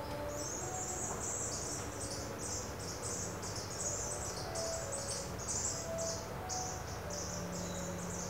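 Sunbird nestlings begging inside a hanging nest while the adult is at the entrance: a rapid run of high, thin chirps in short bursts, starting just after she lands.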